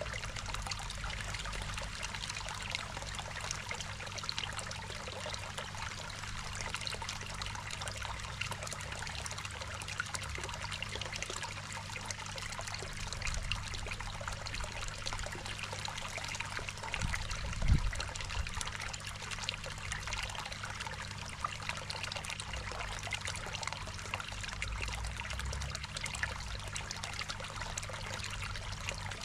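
Water trickling and splashing steadily into a koi pond, over a low steady hum. A single low thump sounds about two-thirds of the way through.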